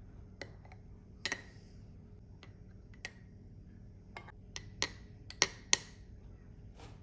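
Spoon clinking against the inside of a glass jar while strawberry jam is spooned in over cake: a series of irregular sharp clinks with a short ring, the loudest two close together a little past the middle.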